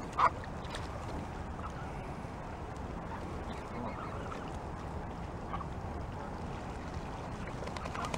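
Canada geese calling: one loud honk about a quarter second in, then scattered softer calls, over a steady low background rumble.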